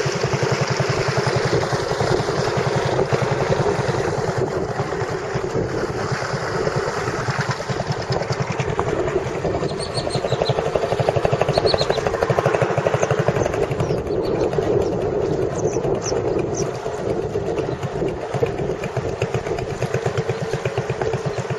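Boat engine running steadily with an even, rapid firing pulse. A few faint high chirps come through about halfway in.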